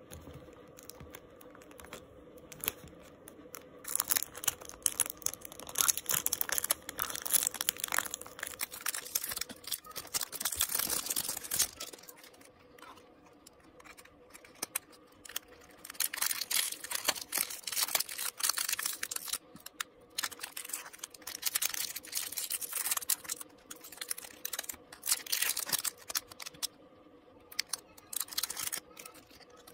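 Crinkling plastic wrap and small paperboard boxes being handled and opened: two long spells of close crackling and rustling with a quieter lull in the middle.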